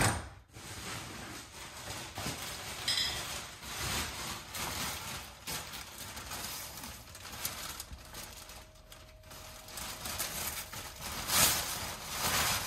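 Clear plastic sheeting rustling and crinkling as it is carried over and spread out on the floor, loudest near the end. A sharp knock comes right at the start.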